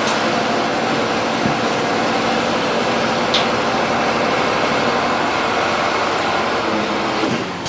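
A heavy vehicle engine running steadily, starting abruptly and dropping away just before the end.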